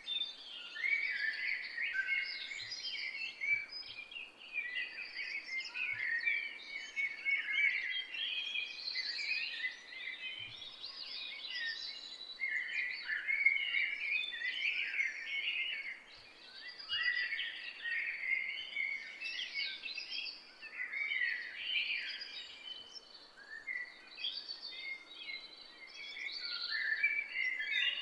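Many songbirds singing and chirping at once, a dense chorus of overlapping short warbles and chirps.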